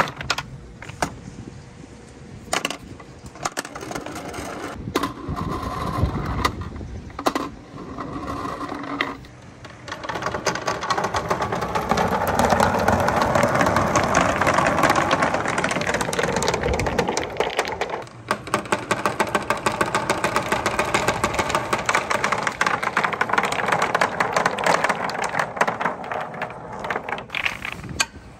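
Scattered clicks of balls being handled, then, from about ten seconds in, a dense, continuous rattle and rumble of many colourful wooden balls rolling down a plastic rain-gutter marble run and knocking against each other. It breaks off briefly and starts again.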